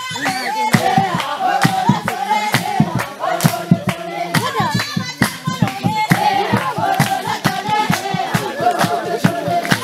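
A group of voices singing a hymn together with steady hand-clapping keeping the beat.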